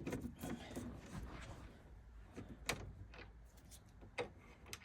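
Faint handling noise with a few sharp clicks, one about two-thirds of the way in and two near the end: tools and the plastic fridge door catch being handled as a T10 Torx driver is made ready for the catch's screws.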